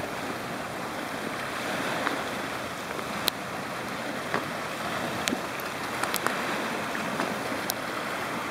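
Steady wash of small waves breaking on a pebble lakeshore, with scattered sharp clicks of pebbles knocking together underfoot as someone walks over the stones.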